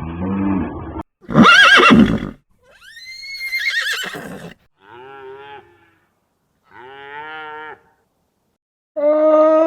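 A horse neighing: two whinnies with a wavering, shaking pitch, the first loud and the second higher and rising. They are followed by three shorter, quieter quavering animal calls with gaps between them.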